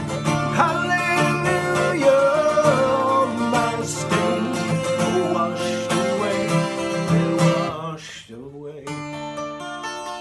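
A man singing with guitar accompaniment. The voice stops about eight seconds in, and the guitar plays on more softly.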